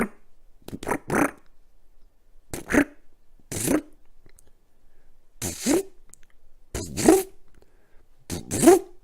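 DeWalt 18-volt cordless driver run in about six short trigger bursts, each winding up in pitch as it drives sheet metal screws through caster mounting plates into wooden legs.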